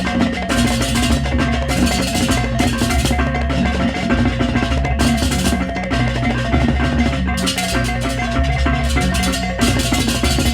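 Balinese baleganjur gamelan music: drums, clashing cymbals and tuned gongs playing a dense, driving rhythm.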